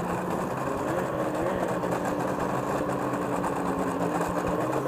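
Ski-Doo snowmobile engine running steadily at low, near-idle speed as the sled creeps forward.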